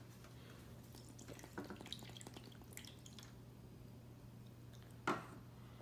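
Faint dripping and trickling of water with light clicks of a plastic glue bottle being handled, as water is added to the emptied glue bottle; a steady low hum runs underneath.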